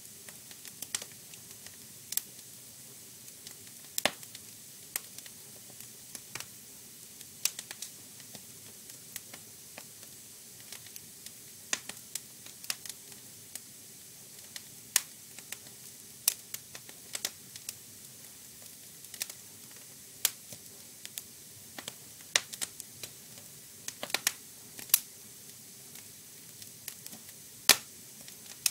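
Wood fire crackling: a soft steady hiss with irregular sharp pops, a few of them much louder.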